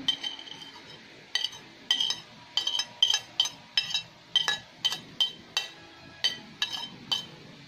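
Metal spoon clinking repeatedly against a ceramic plate as chopped spring onions are knocked off it into a bowl: more than a dozen sharp, ringing taps, about two to three a second, starting about a second in.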